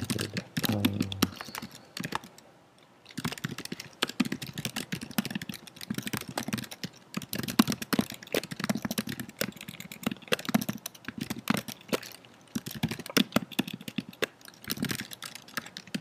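Typing on a computer keyboard: quick runs of keystrokes while code is entered, with a short pause about two to three seconds in.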